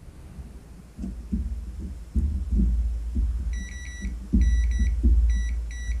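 Multimeter continuity beeper sounding in short broken beeps from a little past halfway, cutting in and out as the seatbelt-warning microswitch contacts touch only intermittently: a poor, likely dirty contact. Low thumps and rumble underneath.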